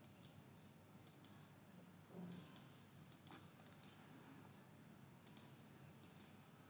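Faint computer mouse clicks, mostly in quick pairs, about seven pairs spread over a few seconds against near silence. There is a soft low thud a little after two seconds in.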